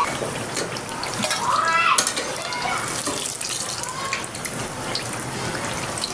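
Tap water running steadily into a kitchen sink. A child's short high call rises over it about one and a half seconds in, with fainter calls after.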